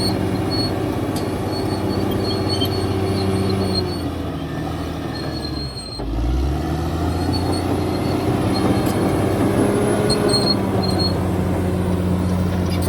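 Caterpillar D6R XL bulldozer working: its diesel engine runs under load while the steel tracks give off intermittent high squeals. About halfway through the engine briefly drops off, then picks up again.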